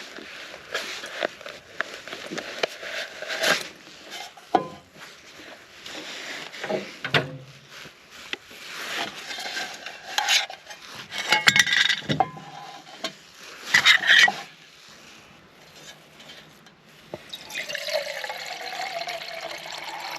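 Water poured and sloshing among metal camp cookware, with repeated clinks and clatters of pot and cup as a cup of tea is made. Near the end comes a longer steady pour.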